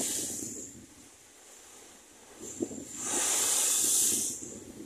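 Storm waves breaking against a lakeside seawall, sending spray hissing over the railing in two surges: one fading away within the first second, then a louder one about three seconds in that lasts over a second, with a low wash of water underneath.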